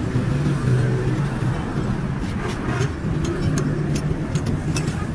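A vehicle engine running steadily, with scattered sharp clicks and taps, several in the second half.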